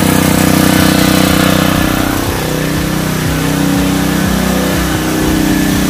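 Extreme 4000 inverter generator's conventional gasoline engine running at a steady speed, heard with its exhaust muffler turned toward the listener.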